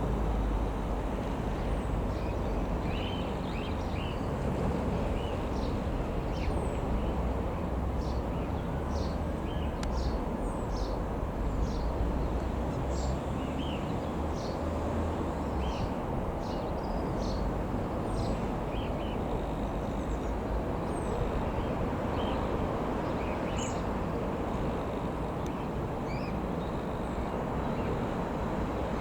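Small birds chirping over a steady low rumble, heaviest in the first half.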